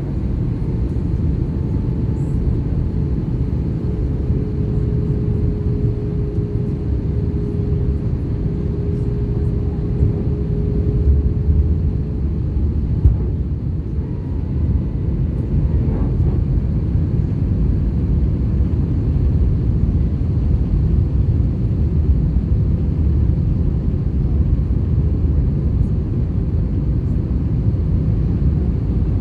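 Steady low rumble of an Airbus A321 airliner's engines and rushing air, with a faint steady hum for several seconds around the middle and one small click just after it.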